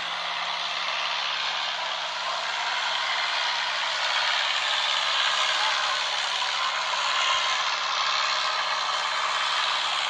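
Steady outdoor noise: an even hiss with a faint, steady low hum beneath it.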